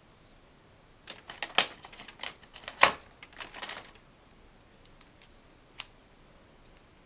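A quick run of small hard clicks and rattles, like small objects being handled, starting about a second in and lasting about three seconds, then one more click near the end.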